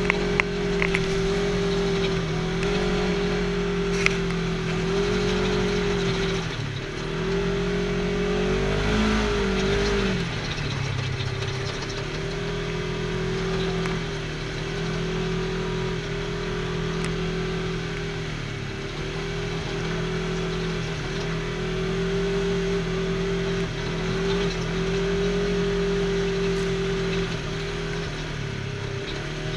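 Side-by-side UTV engine running at a steady cruise on a dirt trail, heard from inside the open cab, its drone dipping in pitch several times as the throttle eases and comes back on.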